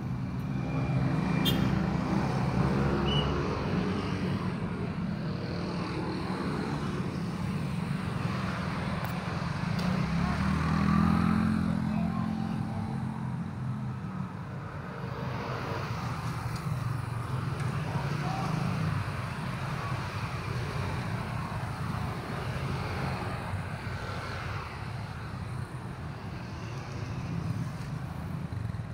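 Street traffic: vehicle engines running close by, with a steady low rumble that swells as vehicles pass, about two seconds in and again around eleven seconds.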